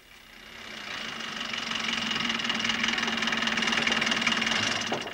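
Small car's engine running as the taxi drives up a dirt track and pulls in, growing louder over the first two seconds, with a steady high whine over it; the sound cuts off abruptly at the end.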